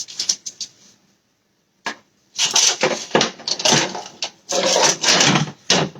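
Kitchen handling sounds: a few light clicks, then a loud run of scraping and clattering lasting a few seconds.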